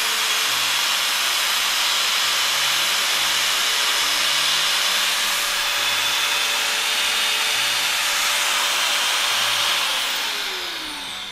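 Makita 720 W, 9,000 rpm angle grinder running at full speed on a test run, a steady high whine. About ten seconds in it is switched off and winds down, its pitch falling.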